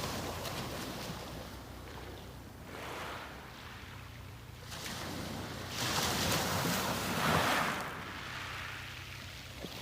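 Sea waves breaking on the beach and washing back, in rising and falling surges, the largest breaking about six seconds in. A faint low hum runs underneath.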